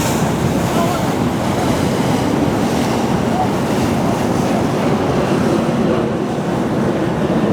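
Steady rush of wind buffeting the microphone over water noise, as on a boat underway.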